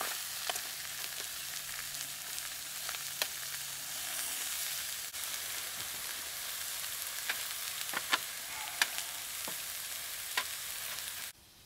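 Sirloin steak and mushrooms sizzling in a small frying pan, a steady hiss broken by sharp pops every second or so. The sizzle cuts off suddenly just before the end.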